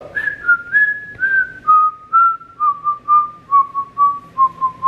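A woman whistling a tune through pursed lips: a run of short, clear notes that steps gradually down in pitch.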